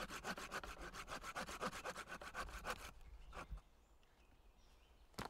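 Small hand saw cutting through a thin wooden branch in quick, even back-and-forth strokes, about eight a second, that stop about three seconds in. A single sharp knock just before the end.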